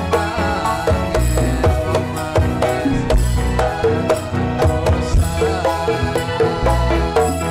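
Live traditional Javanese folk music played for a dance: steady drumming and percussion with a melody line over it.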